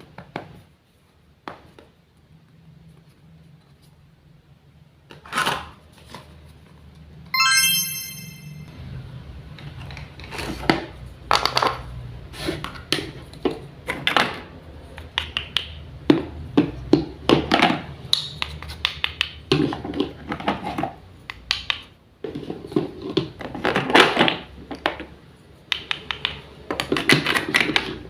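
Sharp clicks, taps and knocks of miniature cookware and utensils being handled. The knocks are sparse at first and grow busy and irregular from about ten seconds in, with one short ringing tone about seven seconds in.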